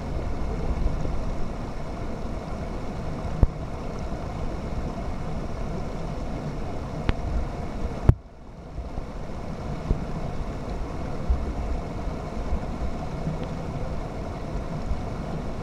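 Steady rushing noise of creek water with wind buffeting the microphone, broken by a sharp knock about three seconds in and a louder one about eight seconds in.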